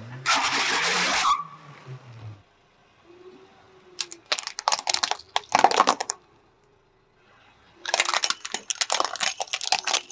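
Car tyre rolling over and crushing plastic objects: a dense crunch starting just after the beginning and lasting about a second, then two runs of sharp cracks and snaps, around four to six seconds in and again from about eight seconds in.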